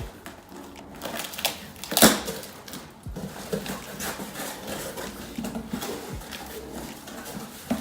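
Crackling and clicking as a cardboard box and its packing are handled and unpacked, with a sharper crack about two seconds in.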